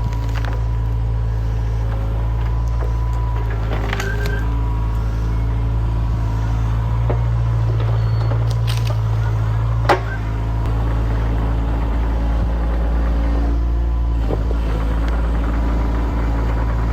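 Excavator's diesel engine running steadily under work, with a faint steady whine and a few sharp knocks, the loudest about ten seconds in.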